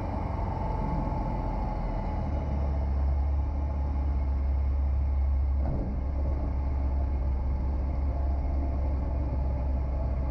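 Single-engine propeller airplane's piston engine and propeller drone steadily, heard from inside the cockpit. The engine's low hum grows louder about two seconds in and holds at high power, as on a takeoff roll.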